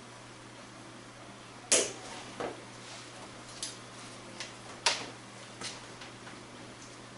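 Snap fasteners on a soft cab enclosure being pressed shut against the roll cage: about half a dozen sharp clicks, one after another, the loudest about two seconds in.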